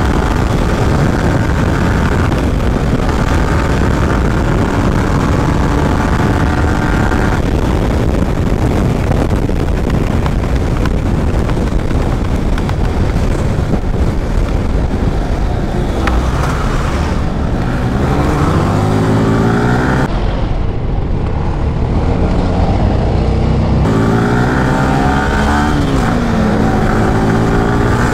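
Yamaha R15M's single-cylinder engine running under way in traffic. The revs climb twice as it accelerates, about two-thirds of the way through and again near the end.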